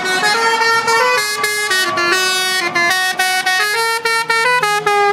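Musical novelty horn on a passing vehicle playing a tune: a loud, quick run of clear notes stepping up and down in pitch.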